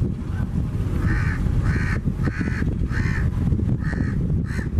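A crow cawing six times in a steady series, starting about a second in, over a steady low rumble of wind on the microphone and rough water.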